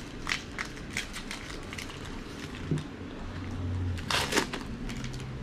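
Trading cards and their plastic packaging being handled: a few short clicks and crinkles, then a louder plastic rustle about four seconds in.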